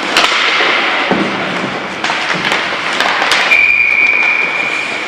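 Ice hockey play: sticks and puck clacking sharply over rink noise, then one long steady whistle blast from the referee, starting about three and a half seconds in.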